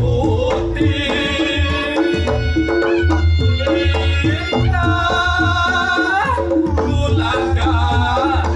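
Reog Ponorogo music played loud through a sound system: kendang drums beating in quick strokes under a heavy bass, with a long held, slightly wavering melody line over the top.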